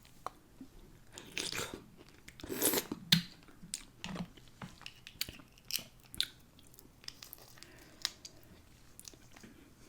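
Close-miked eating sounds: a person chewing and biting food from a spicy seafood boil, with wet mouth clicks and smacks throughout and two longer breathy sounds, slurps or heavy breaths, about one and a half and two and a half seconds in.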